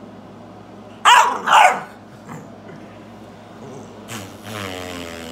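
A dog barks twice in quick succession about a second in, then gives a longer drawn-out call near the end.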